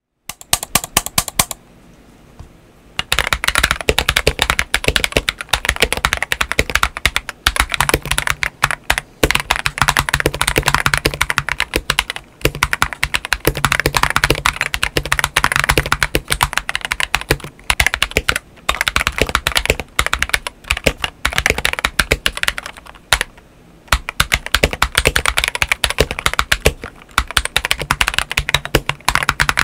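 Fast continuous typing on a modded LK67 mechanical keyboard with Akko CS White switches and SA-profile PBT keycaps mounted on a polycarbonate plate: a rapid stream of key clicks and bottom-outs with a few short pauses.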